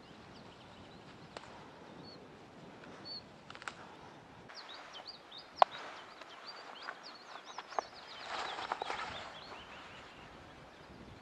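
Small birds chirping in quick repeated calls, with two sharp clicks about five and a half and eight seconds in, and a short stretch of rustling near the end.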